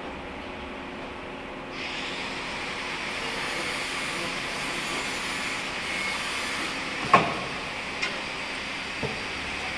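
Welding arc of a straight seam welding machine striking about two seconds in and running with a steady hiss. A sharp click about seven seconds in, the loudest sound, and two smaller clicks after it.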